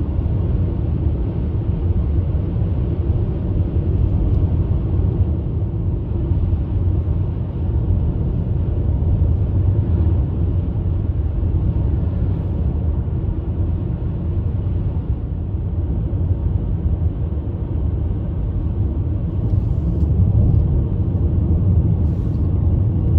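Car road noise heard from inside the cabin while driving on a highway: a steady low rumble of tyres and engine.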